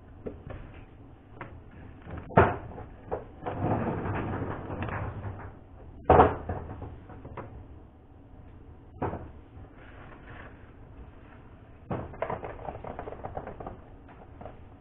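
Hand work at a table wrapping chocolates in foil: several sharp knocks, four of them standing out, and two stretches of dense crackling, likely foil being handled.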